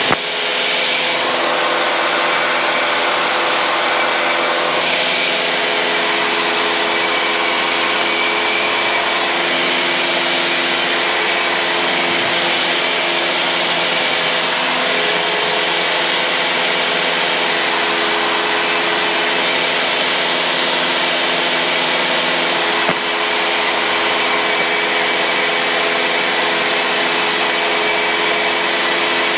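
Steady cruise drone of a 1978 Cessna 172N's four-cylinder engine and propeller, heard through the headset intercom line with a constant hiss.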